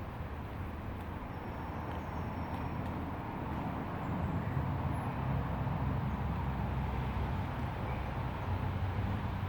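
Steady rush of river water running through a glen, a little louder from about four seconds in.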